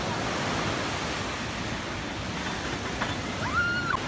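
Ocean waves breaking and washing up a sandy beach: a steady rushing surf. Near the end a short high-pitched cry rises and falls.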